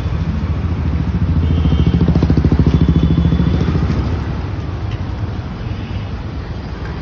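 A motor vehicle's engine running close by as it passes, a rapid low pulsing that grows louder to a peak about two to three seconds in, then fades.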